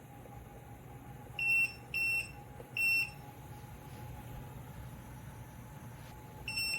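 Short electronic beeps from a ceramic space heater's control panel, three in quick succession and one more near the end, acknowledging button presses. Under them runs a steady low hum.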